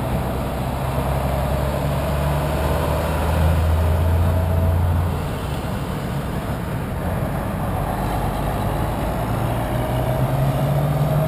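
Heavy truck engine running with a low, steady note. It grows louder about three seconds in, eases after about five seconds, and builds again near the end, over general road traffic noise.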